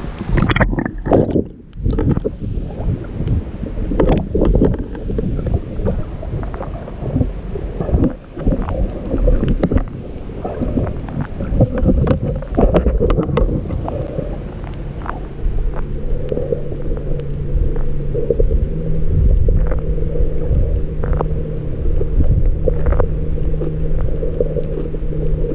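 Water sloshing and splashing against a waterproof camera as it dips in and out of the sea, then the muffled rushing of the camera held underwater while snorkelling. A steady low hum joins from about halfway on.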